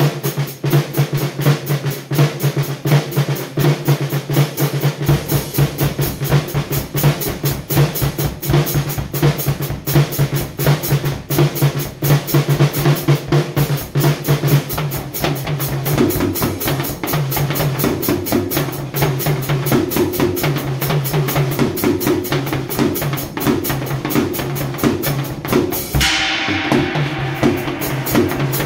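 Acoustic drum kit with Paiste cymbals played in a fast, continuous stream of snare and tom strokes. A kick drum fills in the low end about five seconds in, and a cymbal crash rings out a couple of seconds before the end.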